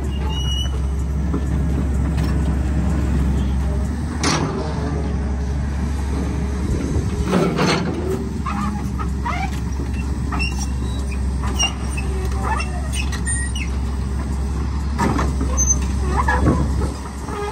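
Kobelco crawler excavator's diesel engine running steadily as the machine works, with a few loud clanks and squeals as its tracks and bucket move over broken concrete rubble.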